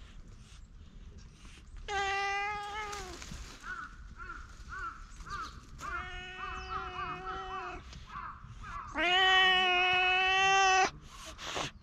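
A stray cat meowing three times in long, drawn-out calls, the last one the longest and loudest.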